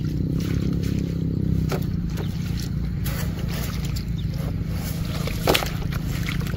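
A small motor runs with a steady low drone while water sloshes and splashes, with one sharper splash or knock about five and a half seconds in.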